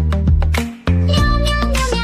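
Background music with a steady beat over sustained bass notes. The music dips briefly, then returns with a higher melody line about a second in.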